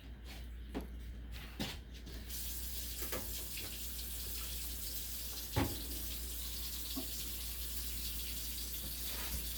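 Water running steadily from a tap or hose, switching on suddenly about two seconds in, with a few light knocks, the loudest about five and a half seconds in.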